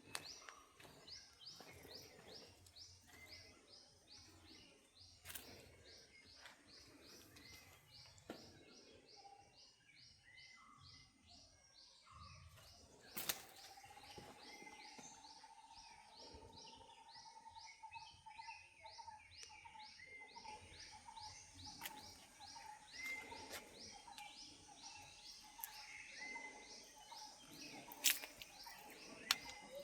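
Faint birds chirping. For the first third, a rapid series of short high rising notes repeats about four times a second. From about halfway, a steady, slightly pulsing lower tone runs underneath, and two sharp clicks stand out.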